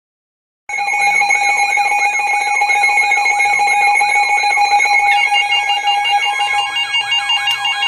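Electronic emergency-alert attention tone starting abruptly about a second in: several steady electronic tones layered with a repeating falling sweep about three times a second, the tone pattern shifting about five seconds in.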